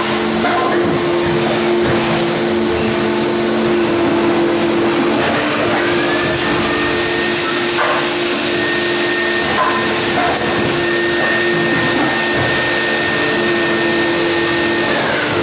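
Plastic injection moulding machine running: a steady hydraulic hum with hiss. A high whine rises in about six seconds in, holds, and drops away near the end, with a few light clicks.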